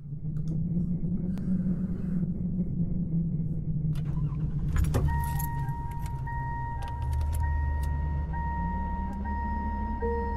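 Recorded car sounds from the opening of a music video: a car engine running with a steady low rumble, a sharp clunk about five seconds in, then a steady high electronic chime tone from the car. A new lower note comes in near the end.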